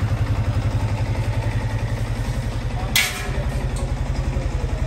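Yamaha R15 V3's 155 cc single-cylinder engine idling steadily, after a rebuild with new piston, cylinder block and oil pump; the bike sounds as it did before the piston failure, which a seized oil pump had caused. A brief sharp click about three seconds in.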